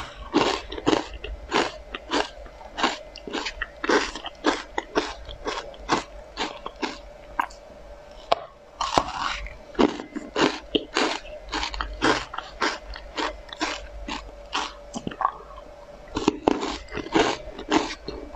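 Close-up crunching and chewing of hard, crisp pink spoon-shaped cookies: sharp bites and crunches, two or three a second, with a short lull about eight seconds in.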